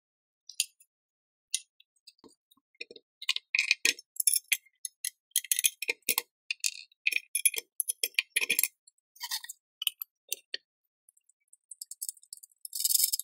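Short metallic clinks and clicks of steel bolts and parts being handled against a steel mounting plate, coming thickest in the middle, with a short rasping noise near the end.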